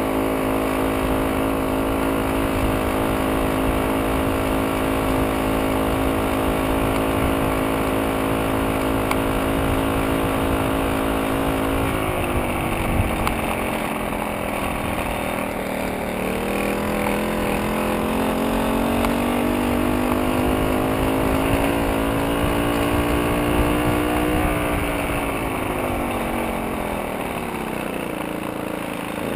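VéloSoleX moped's small two-stroke engine running steadily under way. Its pitch drops about twelve seconds in as it slows, climbs slowly back, then falls again near the end.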